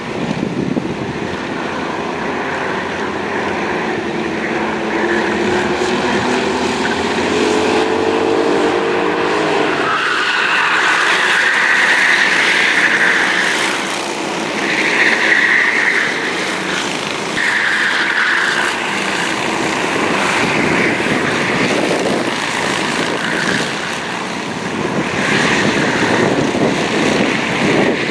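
Racing kart engines at high revs as a pack laps the circuit. For the first ten seconds several engine notes climb together as the karts accelerate, then louder, higher engine notes come and go a few times as karts pass close by.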